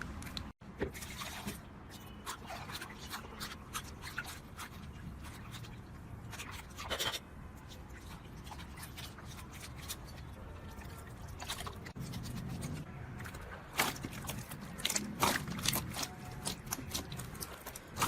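Slime being squeezed and worked by hand, giving irregular short clicks, pops and squelches that come thickest near the end.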